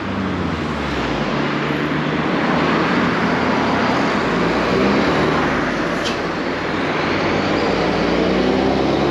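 Steady road traffic: cars driving past on a wide city road, tyre and engine noise. Near the end a truck's engine rises in pitch as it pulls away.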